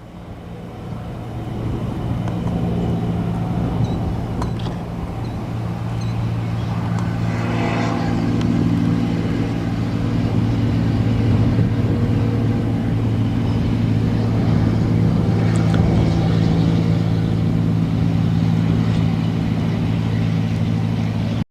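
Piston engine of a light propeller aircraft running at a steady speed, a low even drone that holds one pitch throughout. It fades in at the start, with a short swell of rushing noise about eight seconds in.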